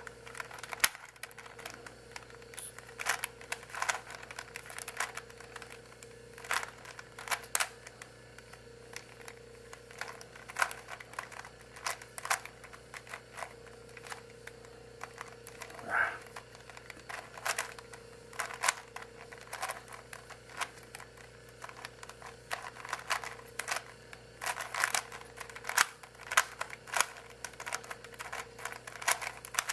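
Rubik's Cube being solved by hand: the plastic layers are turned in quick, uneven flurries of clicks and clacks. A steady low electrical hum runs underneath.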